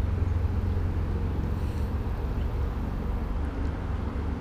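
Steady low outdoor rumble with a soft even hiss over it, and no distinct event standing out.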